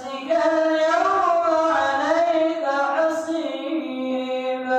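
An imam's solo voice chanting melodically into a microphone while leading prayer, with ornamented turns in pitch. After a brief breath at the start, it settles near the end into a long held note.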